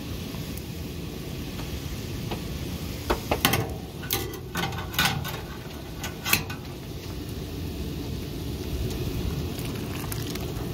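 Maple sap boiling down over a wood fire, a steady sizzling hiss, with a short run of sharp clicks and knocks about three to six seconds in.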